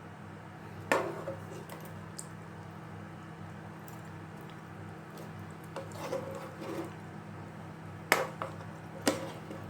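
Kitchen clatter: a few sharp knocks of a pot, lid or utensil over a steady low hum, with the loudest knocks about a second in and near the end.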